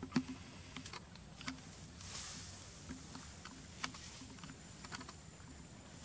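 Scattered light clicks and taps at an uneven pace, with a short rustle about two seconds in.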